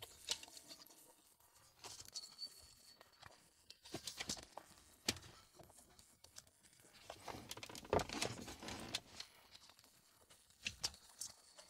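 Faint scattered clicks, rustles and creaks of plastic console trim and the leather gear-lever boot being pushed and pressed into place by hand, in small clusters.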